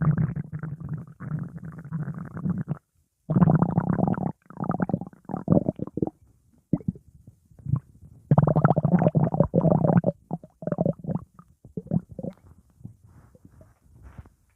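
Stomach growling and gurgling in irregular bursts: a long gurgle at the start, a short pause, a run of shorter gurgles, another long stretch about halfway through, then smaller, fainter gurgles toward the end.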